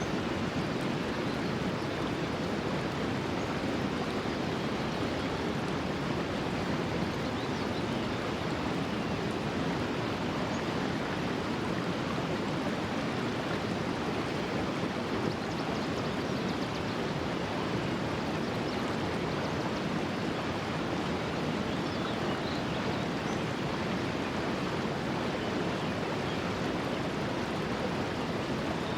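Clear mountain stream rushing steadily, an even wash of running water.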